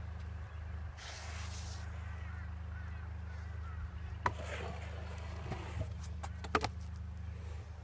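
Kick scooter wheels rolling on a concrete skatepark bowl, with sharp clacks of wheels and deck striking the concrete: one about four seconds in as the rider drops into the bowl, and a cluster a couple of seconds later as he comes down from a tailwhip attempt. A steady low rumble runs underneath.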